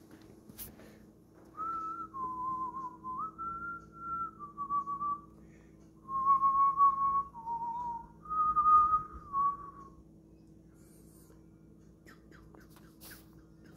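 A person whistling a short tune: a string of held notes that step up and down in pitch, with a brief break partway through.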